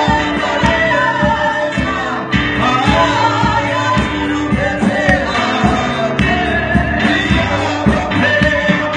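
Gospel song sung by a group of voices into microphones, with amplified instrumental backing and a steady beat.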